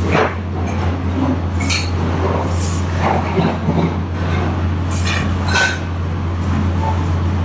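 Steady low machine hum, with several short scraping and clinking noises on top.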